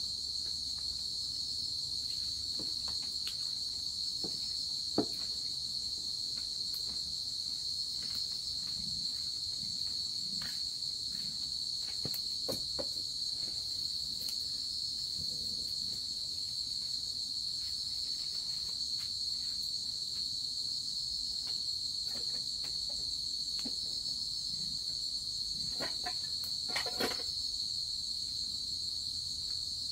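Steady insect chorus, a continuous high-pitched trill that never lets up. A few light knocks and clicks sit over it, a sharper one about five seconds in and a short run of them near the end.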